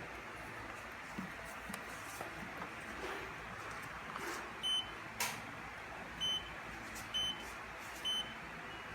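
Control panel of a Sharp ES-FL1018W front-load washing machine beeping as its buttons are pressed to set the wash temperature: four short high-pitched electronic beeps, about a second apart, in the second half, with a sharp click just after the first.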